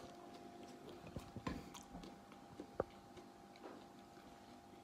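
Chewing a crispy pizza crust cooked on a tava: a few faint, scattered crunches and clicks from the mouth.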